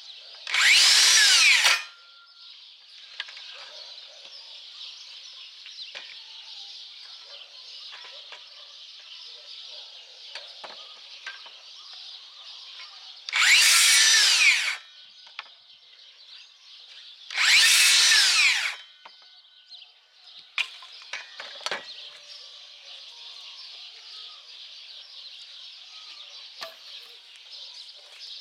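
DeWalt DCS578 60V Flexvolt cordless circular saw cutting through thin tree branches in three short bursts of about a second and a half each, once near the start and twice in the middle. Its motor whine bends in pitch as it spins up and cuts, then stops quickly as the brake halts the blade. Between the cuts come light clicks of sticks being handled over a steady high hiss.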